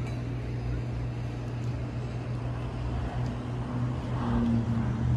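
Steady low hum of a running motor, with a faint higher tone joining about three seconds in.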